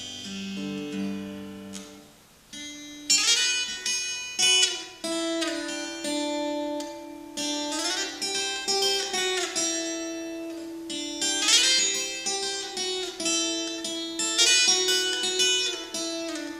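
Handmade acoustic guitar fingerpicked in an instrumental break: single plucked notes and chords ring out, with a short pause about two seconds in before the picked melody resumes.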